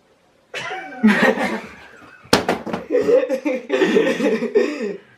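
A boy's vocal imitation of a flushing toilet: warbling, gurgling mouth sounds with a sharp click about two seconds in.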